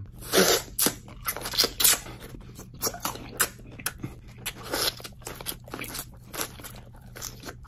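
Close-miked crunching bites and chewing of a raw jalapeño pepper coated in chamoy soft caramel, in irregular crisp crunches that are loudest in the first two seconds.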